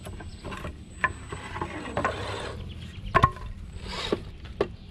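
Redcat Gen8 scale RC crawler climbing over logs and wooden boards: irregular knocks and clatters of its tires and chassis against the wood, the loudest a sharp knock about three seconds in.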